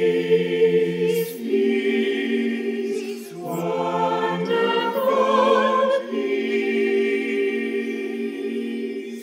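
Mixed choir singing slow, sustained chords in a few phrases, with short breaks between them about one and a half and three seconds in.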